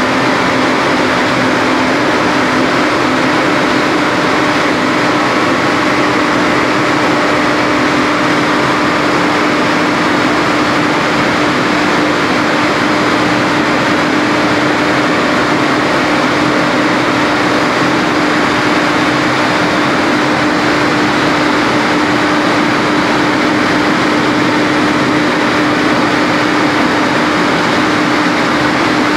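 Hydroelectric turbine-generator set running steadily at full speed (1000 rpm) under load, delivering about 820 kW. It makes a loud, even rushing noise with a steady hum that does not change.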